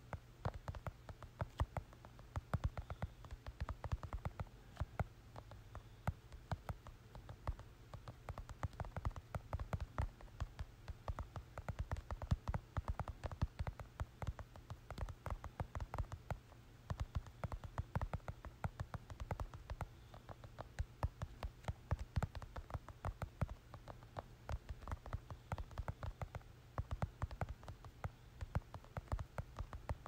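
Fingertips typing on a smartphone touchscreen: rapid, irregular light taps, several a second with brief pauses, over a low steady hum.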